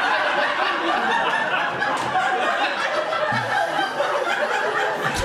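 Audience laughing at a stand-up joke: many people laughing and chuckling at once, holding steady.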